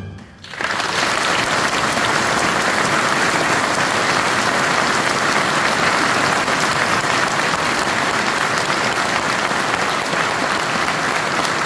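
Large concert-hall audience applauding, breaking out about half a second in and holding steady and dense.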